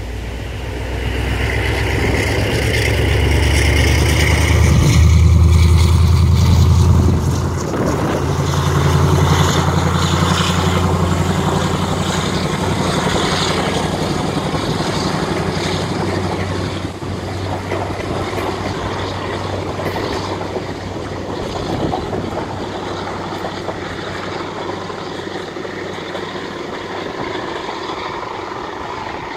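Class 35 Hymek diesel-hydraulic locomotive D7017 pulling away under power with its train, its Maybach V16 diesel engine running loud. The engine note is strongest a few seconds in, dips briefly about seven seconds in, then fades steadily as the locomotive draws away.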